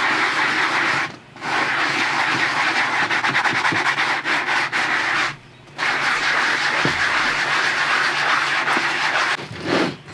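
Fine-grit sanding block (about 800 grit) rubbed back and forth over the leather of a vintage Coach purse, buffing out scratches: a steady scraping, broken by two short pauses, about a second in and about five and a half seconds in.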